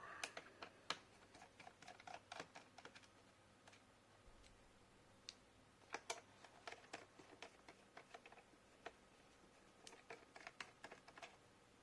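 Faint, scattered clicks and light taps of a screwdriver and fingers on the plastic underside of an HP 15 laptop, as the rubber feet are pried off to reach the screws beneath them. The clicks come in small clusters with quiet gaps between.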